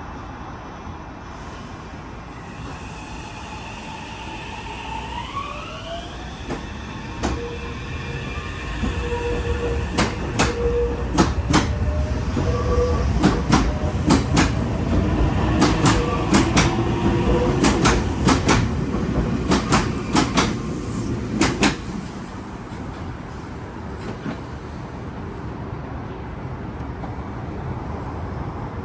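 Meitetsu 2200 series electric train running past: an electric motor whine rises in pitch about five seconds in, then wheels clack over rail joints as the train rumbles by for about twelve seconds before the sound dies down.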